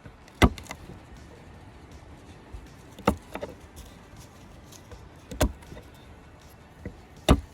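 Four sharp knocks, spaced two to three seconds apart, over a faint steady background hiss.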